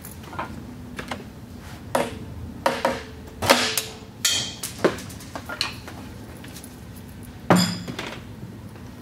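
Hammer striking the steel half-moon (Woodruff) key on a Mud Buddy Sport V transmission shaft to drive it out: about eight irregular metallic taps, some with a short ring, the loudest about three and a half seconds in.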